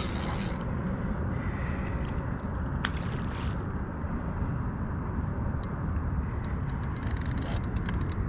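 Steady low rumble of wind buffeting the microphone, with a few light clicks from the rod and reel being handled.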